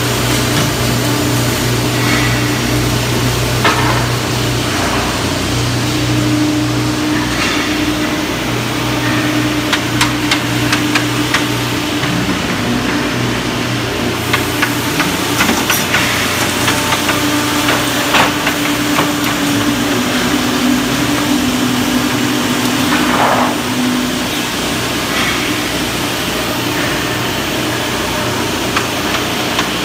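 Finger jointing line running: a steady machine hum with mid-pitched tones that start and stop, and scattered knocks and clicks as boards move through.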